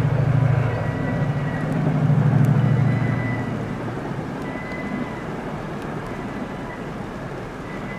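Freight train on a viaduct heard from across the river: the low hum of the leading locomotives is loud for the first three seconds or so, then fades, leaving the steady rolling noise of the container wagons passing over the rails.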